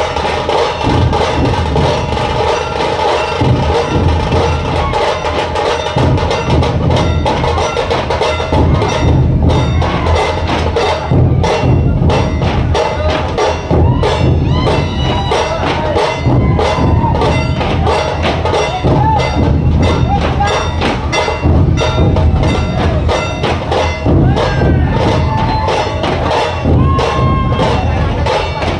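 Dhol-tasha ensemble playing: many large dhol barrel drums beaten together in a fast, driving rhythm, with the sharp, rapid strokes of tasha kettle drums over the deep beats.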